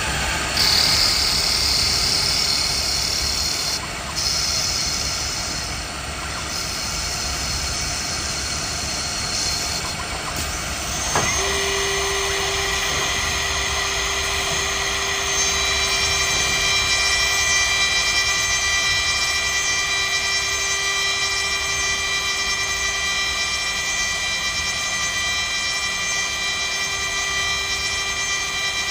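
CNC wood lathe running, with a high hiss of cutting for the first nine seconds or so. After a sharp click about eleven seconds in, it settles into a steady machine whine of several held pitches.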